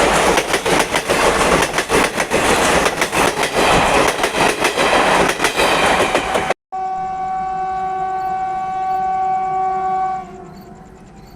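Indian Railways express train passing close at speed, a dense rushing noise with wheels clattering rapidly over rail joints. After an abrupt cut, a locomotive horn sounds one long steady note for about three seconds and stops.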